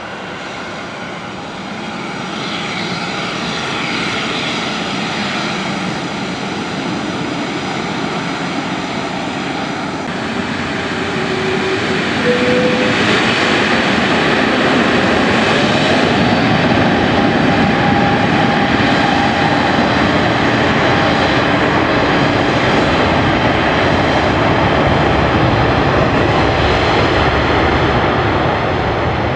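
Rolls-Royce Trent XWB turbofan engines of an Airbus A350-900 spooling up to takeoff thrust, with a loud, steady jet noise that grows louder about twelve seconds in. A whine in the engine sound rises in pitch around the same moment.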